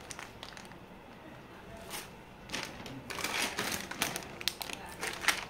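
Plastic food packets crinkling and rustling as they are handled, in a run of short crackly bursts through the second half, after a single click about two seconds in.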